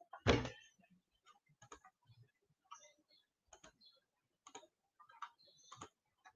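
A knock just after the start, then faint, irregular clicks and taps, about one or two a second.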